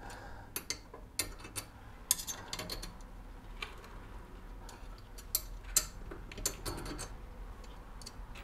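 Scattered light metallic clicks and taps, a dozen or so at irregular intervals, as a wave-type steel brake disc and its wheel hub are handled and fitted together by hand.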